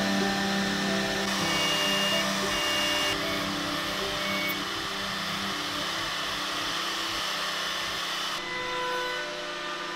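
Router motor on a sliding jig machine running with its straight bit cutting into a hardwood workpiece: a steady high whirring hiss that grows louder a second or so in and stops about eight seconds in.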